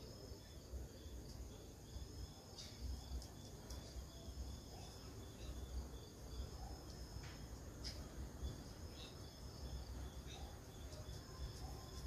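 Faint room tone: a steady high-pitched whine that keeps breaking off and resuming, over a low rumble, with a few light clicks.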